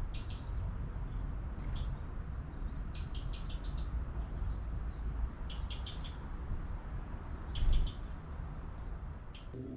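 Hummingbird chip notes: short high chirps, some in quick runs of four or five, over a steady low outdoor rumble. A brief louder rush of noise comes about eight seconds in.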